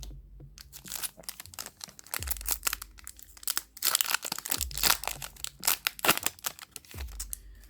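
Crinkling and tearing of a foil Yu-Gi-Oh booster pack wrapper being handled and opened, a dense run of irregular crackles.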